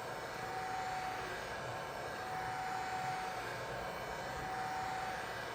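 Heat gun blowing hot air steadily, a constant rushing noise with a faint thin whine, heating a phone screen to soften its adhesive.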